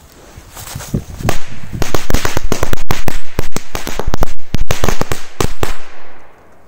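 Firecracker belt (a strip of many small firecrackers) going off: a second of fuse hiss, then a fast, irregular string of sharp bangs for about five seconds that stops suddenly near the end.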